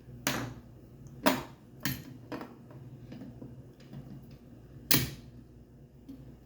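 Fire alarm pull station being handled and snapped shut after a reset: five sharp plastic-and-metal clicks, the loudest about a second in and again about five seconds in.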